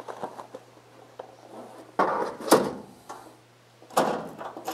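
The front emergency-slot door of a voting machine's ballot box cabinet being handled while the ADA accessory kit is pushed into the slot: two scraping, clattering bursts, about two seconds in and about four seconds in, the first ending in a sharp knock.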